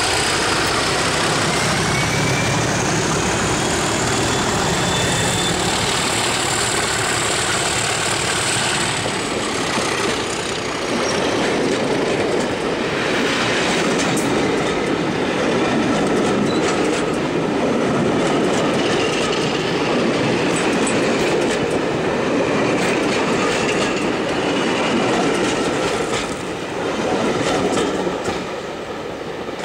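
A pair of Class 37 diesel locomotives passing close by with their engines running, with a high whine over the first ten seconds or so. They are followed by a train of passenger coaches rolling past, the wheels clattering over the rail joints.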